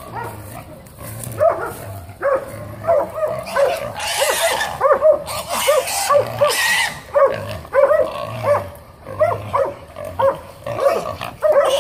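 Hog-hunting bay dogs barking rapidly and repeatedly, about two or three barks a second, the bay that holds a hog stopped.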